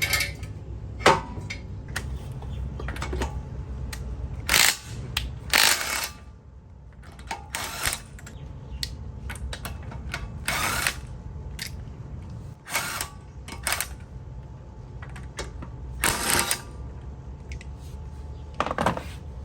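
About ten short, irregular bursts of noise from tool work on a car's brake and wheel assembly, each lasting under a second, over a steady low hum.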